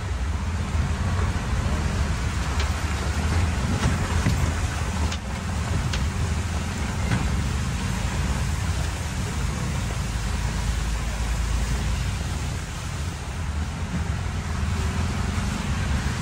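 Auto-rickshaw riding through traffic in heavy rain: a steady low engine rumble under an even hiss of rain and wet road, with a few faint clicks.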